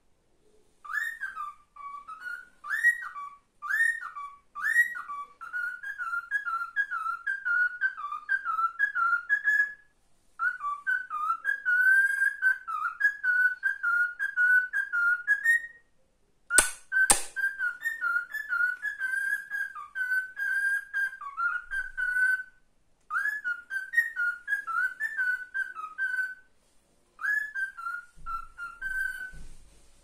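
Male cockatiel whistling a learned tune, a melodic string of short warbling notes in several phrases with brief pauses between them. Two sharp clicks come about halfway through.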